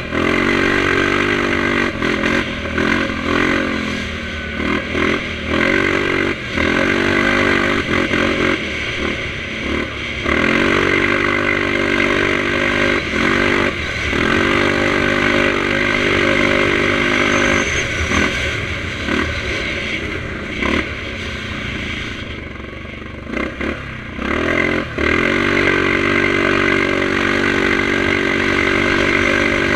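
Yamaha Grizzly 700 ATV's single-cylinder four-stroke engine, breathing through an HMF aftermarket exhaust, running under way as the rider repeatedly opens and eases the throttle. The engine note rises and falls, dropping away briefly twice.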